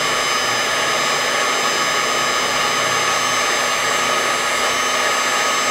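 Heat gun blowing steadily with a constant whine, heating a thermal plate from below to melt the solder under two new power MOSFETs.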